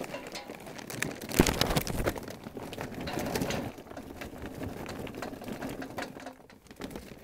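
Charcoal briquettes poured into a pit barrel cooker's steel charcoal basket, clattering against each other and the metal. The pour is loudest about one and a half seconds in, then thins to a few briquettes knocking as they settle.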